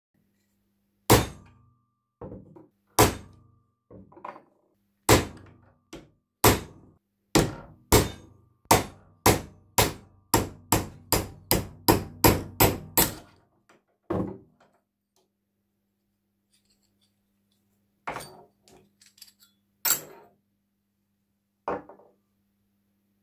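Hammer striking a steel pin punch to drive the pivot pin out of an old adjustable wrench held in a bench vise: about two dozen sharp metallic blows that speed up to about three a second, then stop. A few single knocks follow after a pause.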